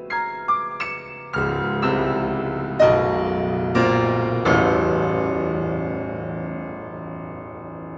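Solo piano: a few separate single notes, then a series of loud full chords, the last of them left to ring and die away slowly.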